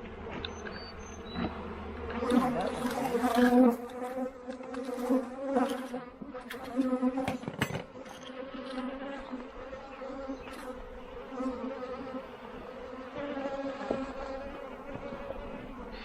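Honey bees buzzing in a steady drone over an open hive during a frame-by-frame inspection, swelling louder a couple of seconds in. A few sharp clicks and knocks sound midway.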